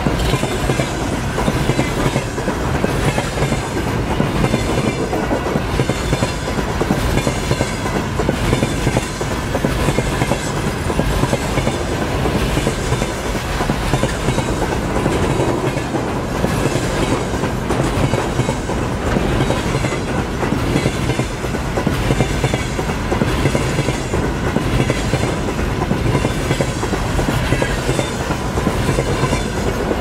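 A train passing close by at speed, a continuous loud rumble with wheels clattering over rail joints in a steady repeating rhythm.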